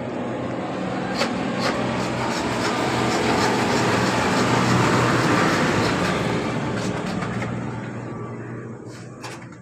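A motor vehicle passing by, its noise swelling to a peak about halfway through and fading away, over a steady low engine hum.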